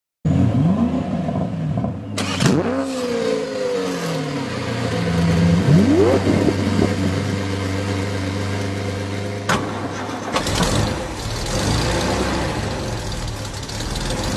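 2016 Kia Soul's four-cylinder petrol engine running, revved up several times in the first few seconds, with a couple of sharp clicks.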